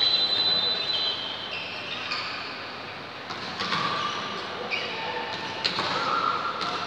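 Volleyball players' shoes squeaking on the indoor court floor: a run of short high squeaks at changing pitches, with a couple of sharp knocks from the ball late on, over the steady hum of a large sports hall.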